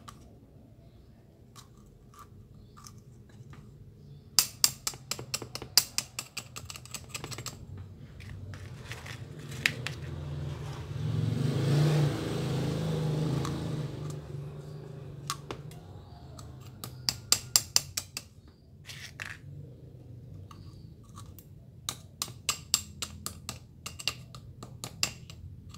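Quick runs of sharp metallic clicks and taps as small metal fittings on a pressure-washer pump's valve housings are handled and screwed together, coming in several clusters. A low rumble swells and fades in the middle.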